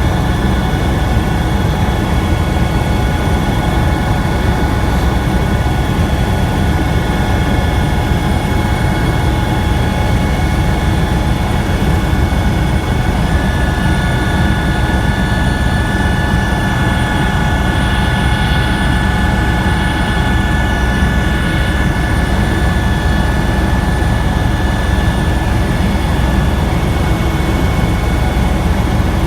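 Helicopter engine and rotor noise heard from inside the cabin during flight: a loud, steady low rumble with a layer of whining tones. A higher whine joins about halfway through and fades out near the end.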